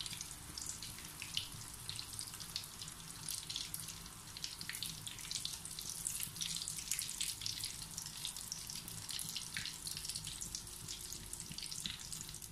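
Breadcrumb-coated chicken drumsticks deep-frying in hot oil in a pan: steady sizzling, dense with small crackles and pops.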